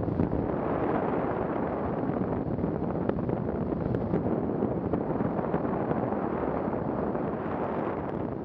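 Steady wind rush on the microphone of a Honda Africa Twin motorcycle riding along, with the bike's running noise underneath.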